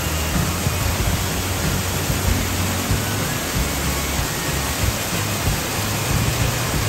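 Small waterfall cascading over mossy rock steps: a steady, even rush of falling water.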